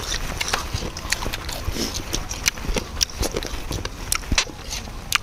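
Close-up eating sounds: wet chewing and lip-smacking of spicy squid salad, with irregular sharp clicks of metal spoons against the plate.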